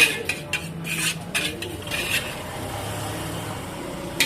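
Metal spatula clanking and scraping against a wok as fried rice is stir-fried, with several sharp strikes in the first two seconds followed by steadier scraping and stirring.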